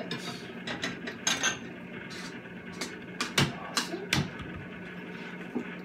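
Metal teaspoon clinking and tapping against a mixing bowl as olive oil is measured out spoonful by spoonful: about a dozen light, irregular clinks over a steady low hum.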